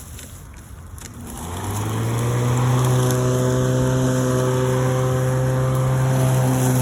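Greenworks corded electric lawnmower's motor starting about a second in, spinning up with a rising hum and then running at a steady pitch.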